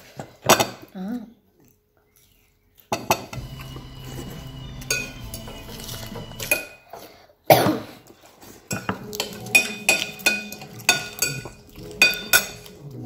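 Cutlery and dishes clinking and knocking at the table during a meal. It is a run of sharp clinks and taps, with one loud knock about halfway through and quick, closely spaced clinks near the end.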